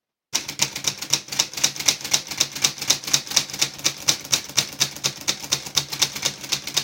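Stripped-down Royal Epoch manual typewriter typing a row of Y's: a rapid, even run of sharp clacks, about six a second, as the typebar strikes the platen over and over. The run starts about a third of a second in. Each clack is the test that the dismantled machine still types.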